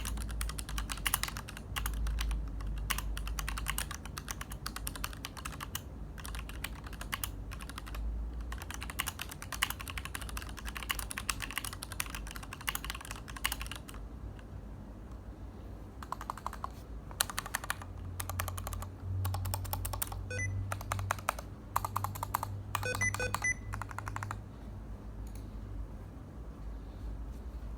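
Typing on a Tada68 mechanical keyboard with Gateron Black linear switches in an aluminium case: rapid key clacks. They run densely for about the first half, then come in shorter flurries separated by pauses.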